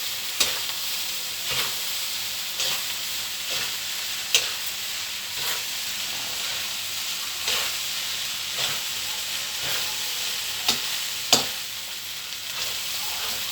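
Fried rice sizzling in a hot pan as it is stir-fried, with a spatula scraping and knocking against the pan about once a second. The rice has just had its stock-and-egg liquid mixed in.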